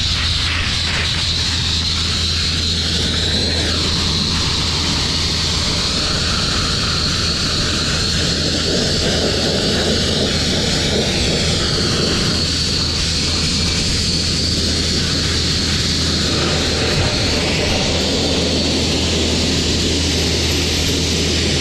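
Sandblaster spraying fine No. 4 sand against a bare steel truck frame: a loud, steady hiss of air and grit with a low hum underneath.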